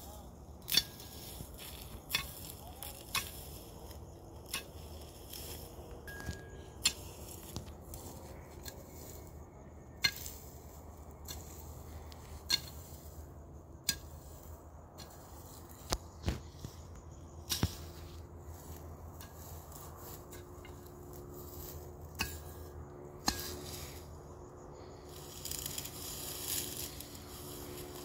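Long-handled hoe striking dry, stony ground and grass stubble: sharp chops at an uneven pace, one every second or two.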